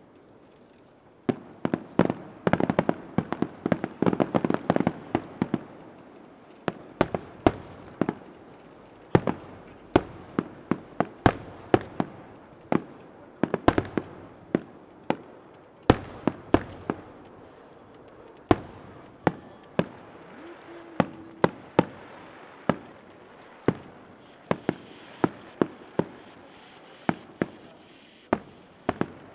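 Aerial fireworks bursting: a dense run of bangs a second or so in, then sharp bangs one or two a second.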